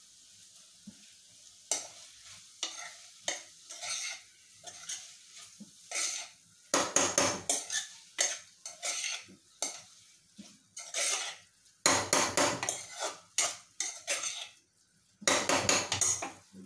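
Steel ladle stirring and scraping vegetables in an open aluminium pressure cooker, in irregular bursts of quick strokes against the pan, over a faint sizzle of the food frying.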